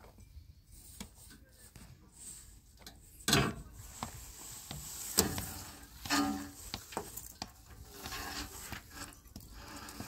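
A large tarp being pulled and dragged over rubble, rustling and scraping, with a few louder knocks at about 3 and 5 seconds in.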